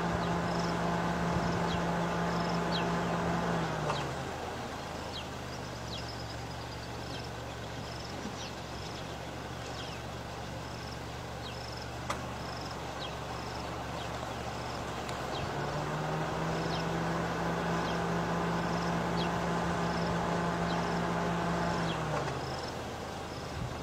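A vehicle engine running at low revs: it settles lower about four seconds in, picks up again near sixteen seconds and eases back near the end. Short high chirps repeat about twice a second over it.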